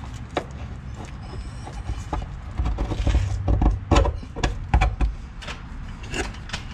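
Metal clinks, knocks and scraping as a rusted bracket and its bushing are worked loose from a car's underside by hand. The handling is busiest and loudest from about two and a half to five seconds in, with a low rumble under the knocks.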